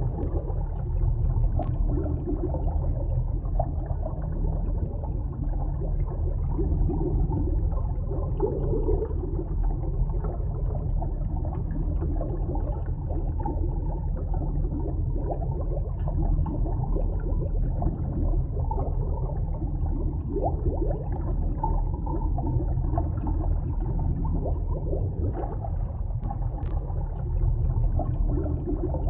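Underwater ambience: a steady low rumble and gurgling of moving sea water. A faint click about two seconds in and another near the end.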